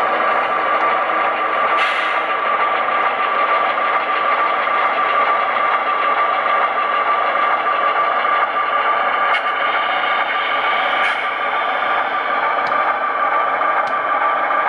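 HO scale model diesel locomotive's onboard sound running steadily: an engine drone with a constant whine. A few light clicks break through it.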